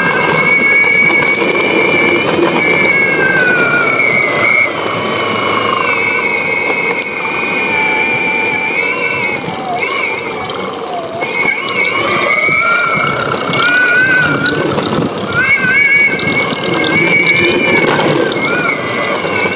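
DIY electric skateboard's single belt-drive motor whining, its pitch rising and falling with speed, over the rumble of the hard wheels rolling on concrete.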